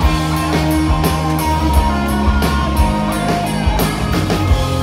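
Live rock band playing: electric guitars over bass and a steady drum beat.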